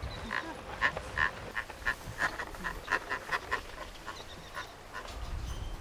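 Toy push lawn mower clicking as it is rolled over grass, in short quick bursts that come about three or four a second at their fastest, then thin out near the end.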